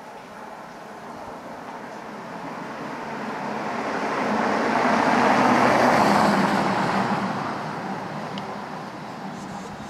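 A car drives past on the street, swelling to a peak about halfway through and then fading away.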